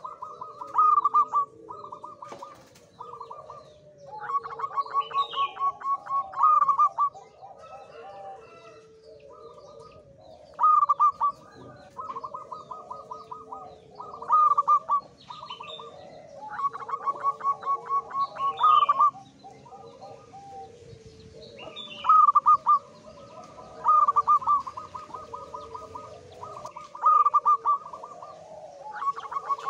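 Male zebra dove (perkutut) singing: phrases of quick staccato cooing notes, repeated every few seconds. This is the song of a male in high breeding condition.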